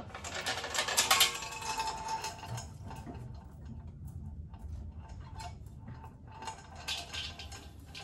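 Small electric concrete mixer's drum being tilted by its hand wheel, the tilt mechanism clicking rapidly as it steps through the holes of its locking plate. The clicking is loudest about a second in and comes again in a shorter run near the end.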